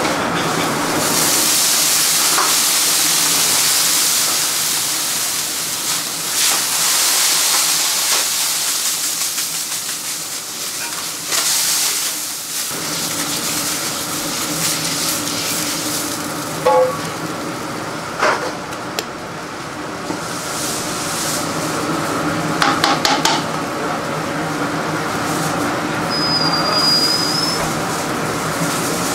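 Hot dosa griddle sizzling and hissing in bursts over a steady kitchen hum, with a few sharp knocks of utensils in the second half.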